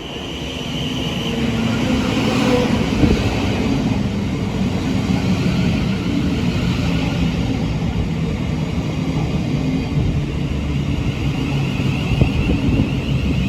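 Thameslink Class 700 electric multiple unit pulling into the platform. It grows louder over the first two seconds or so, then holds a steady hum and rumble from its motors and equipment, with a wavering high tone near the end.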